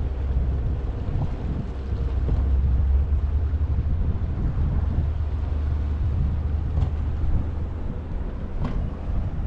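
Low, steady rumble of a passenger ferry's engine close by, with two faint clicks near the end.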